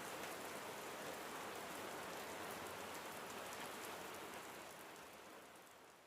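Steady rain-like noise with a fine patter of drops, fading out over the last second or two.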